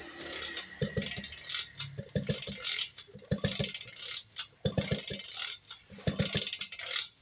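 Repeated short knocks and clanks in quick clusters of two to four, typical of scrap-iron parts being handled and struck together.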